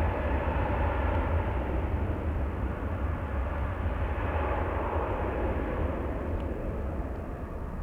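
Jet airliner engine noise, a steady rush that slowly fades toward the end, over a low wind rumble on the microphone.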